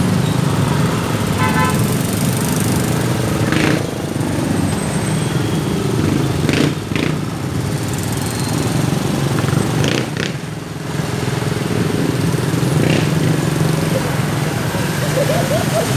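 Motor scooters idling and creeping past close by in slow, congested street traffic, their small engines running steadily, with a few short sharp knocks along the way.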